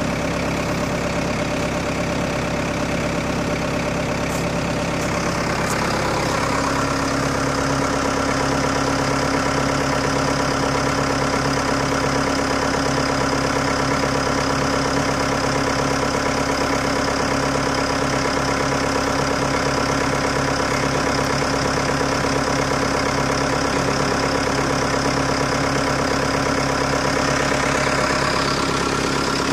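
A steady engine running at idle, holding several even tones, whose note shifts about five to six seconds in and then stays steady. No explosion bangs are heard.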